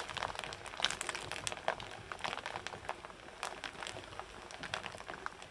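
Corn kernels frying and popping in hot oil in two woks: irregular sharp pops and crackles, with metal spatulas stirring and scraping through the kernels.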